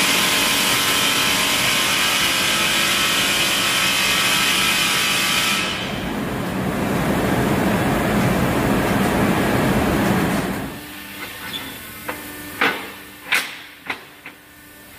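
Loud, steady, hissing machinery noise in a leaf-spring shop; it loses its high end about six seconds in and cuts off sharply near eleven seconds. Then come several sharp metallic clanks of steel spring leaves being handled on a workbench.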